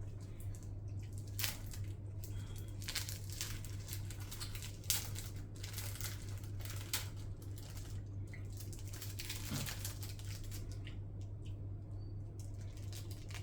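A snack's wrapper being crinkled and torn open by hand, an irregular run of crackles that thins out near the end, over a steady low hum.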